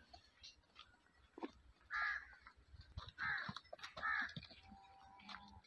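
A crow cawing three times, short harsh calls about a second apart.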